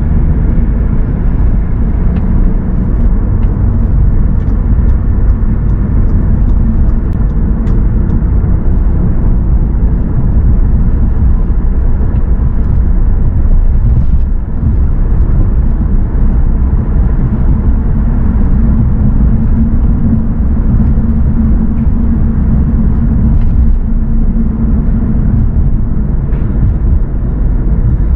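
A car being driven: a steady, loud, low rumble of engine and road noise.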